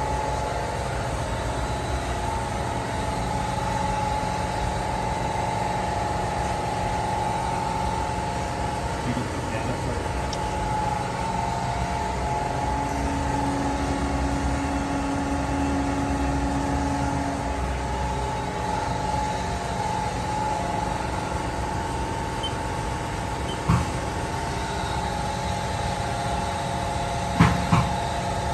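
Steady hum of powered-up machine-shop equipment: several steady tones over a low rumble. A lower tone joins for about four seconds in the middle, and there are a few sharp clicks near the end.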